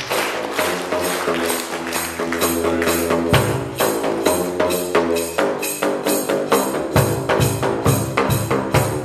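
Home-made drum instrument of plastic drain pipes cut to different lengths, struck rapidly with flip-flops to play a tune: a quick, even run of pitched, hollow slaps. Held low bass notes sound underneath for stretches.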